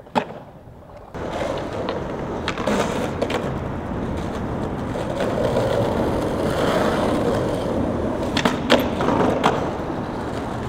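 Skateboard: two sharp clacks at the start. Then, from about a second in, the steady rumble of urethane wheels rolling over rough asphalt, broken by more sharp clacks of the tail popping and the board landing, twice a few seconds in and three times near the end.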